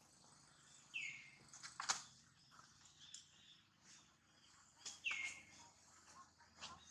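Two short, high animal calls about four seconds apart, each sliding down in pitch and then holding briefly. A few sharp clicks fall between them, the loudest about two seconds in, over a faint outdoor hiss.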